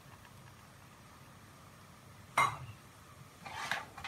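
Metal ladle knocking and scraping against a metal kadhai holding oil: a sharp clink about two and a half seconds in, then a short scrape and another knock near the end, after a quiet start.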